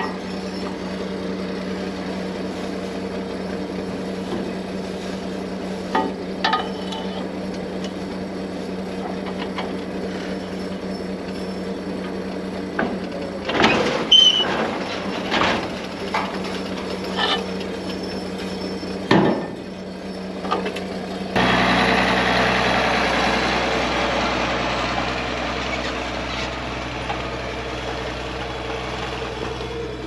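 International Harvester 1206 tractor's diesel engine running steadily, with metal clanks and knocks from a pipe wrench and pipe worked on the mower conditioner's roller drum, loudest about 13 to 15 seconds in and again near 19 seconds. About 21 seconds in the sound switches to a louder, even rushing noise over a lower hum.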